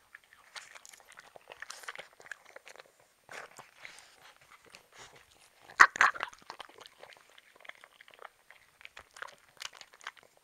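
Small dogs crunching and chewing pieces of raw pear taken from a hand, in irregular short crunches and bites. There is one much louder sharp sound about six seconds in.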